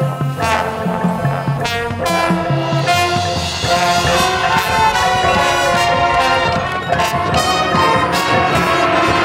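Marching band playing: brass chords of trombones and trumpets over sharp drum strikes, with low repeated notes at first, growing louder and fuller about three and a half seconds in.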